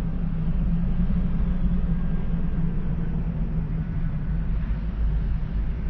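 Steady low rumble of a vehicle's engine and road noise, with no sudden sounds.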